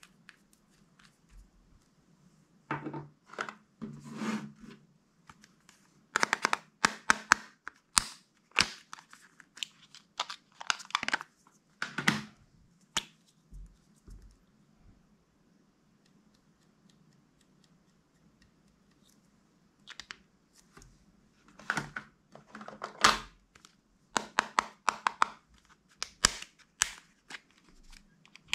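Small plastic containers and packaging handled by hand: crinkling plastic and sharp clicks of caps and lids being pulled and snapped, in irregular clusters with a quiet stretch of several seconds in the middle.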